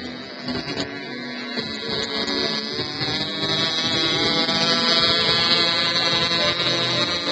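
Small engine of a radio-controlled model seaplane running at a high, steady pitch, growing louder a couple of seconds in and then holding.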